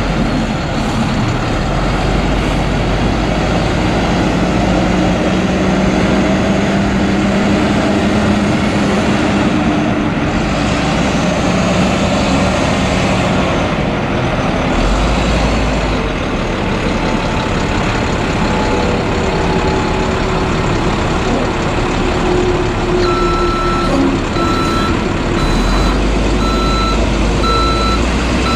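International DT466 turbo diesel in a DuraStar 4400 bucket truck running, its pitch rising and falling. Near the end the truck's backup alarm starts beeping about once a second as it reverses.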